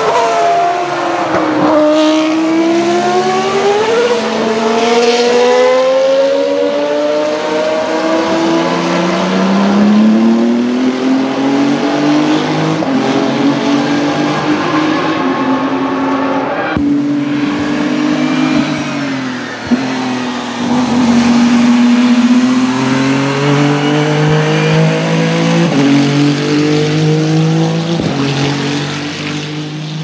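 A late-1990s Ferrari Formula 1 car's V10 engine at racing speed: the pitch drops sharply as the car passes and brakes, then climbs in steps through upshifts. High-revving engine notes carry on, rising and falling with further gear changes.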